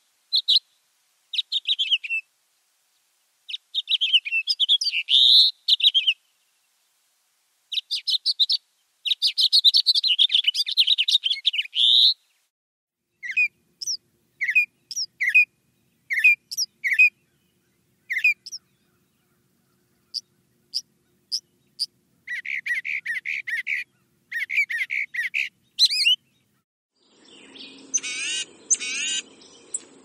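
Songbirds singing in separate phrases with silent gaps: first the long, fast warbling song of house finches, then a northern mockingbird's single sharp notes and a phrase of rapidly repeated notes. Near the end a low steady hum comes in under softer bird calls.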